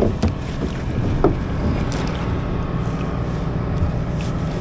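Steady low wind rumble on the microphone out on a kayak at sea, with a couple of faint knocks early on and about a second in.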